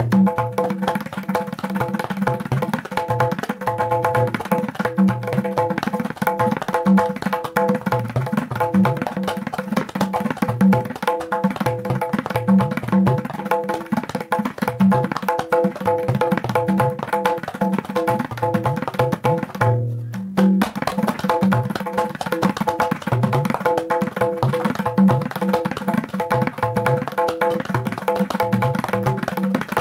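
A tabla played solo in teen taal, the sixteen-beat cycle, in a dense, continuous flow of strokes on the wooden right-hand drum and low strokes on the metal bass drum. There is a brief break about twenty seconds in, then the strokes resume with low bass-drum strokes.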